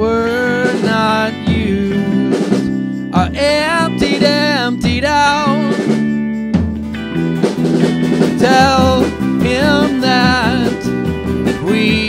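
A band playing live: a male voice singing over strummed acoustic guitar, electric guitar, bass guitar and a small kit of snare and floor tom played with sticks. The voice pauses briefly about six seconds in, while the instruments play on.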